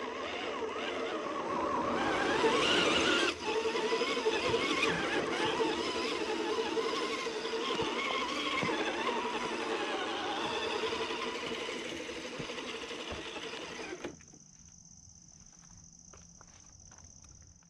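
Scale RC crawler truck's electric motor and gear drivetrain whining, its pitch rising and falling with the throttle, with a brief break about three seconds in. It stops about fourteen seconds in, leaving a faint steady high-pitched tone with light ticks.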